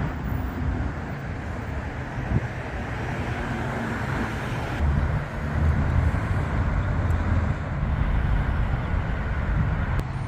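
Road traffic passing: a steady wash of car tyre and engine noise, a little louder after the middle.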